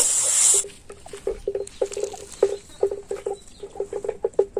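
Paste and potatoes frying in a pan: a hiss of sizzling cuts off sharply under a second in, followed by a quick, irregular run of short pitched pops and taps to the end.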